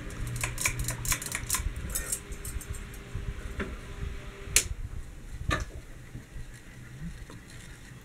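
GEV ceiling fan running, its motor giving a steady low hum. A quick run of light metallic clicks and clinks comes in the first two seconds, and two sharper clicks come about halfway through.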